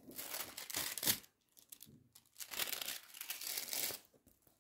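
Thin metallic transfer foil crinkling as the sheet is pressed down and handled over a sticky foil-art picture, in two stretches of rustling with a short pause between.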